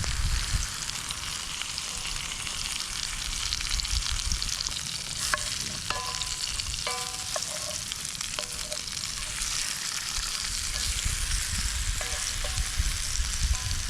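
Steak and onions frying in a pan over campfire coals: a steady sizzling hiss of fat and juices, with a few brief high squeaks in the middle and near the end.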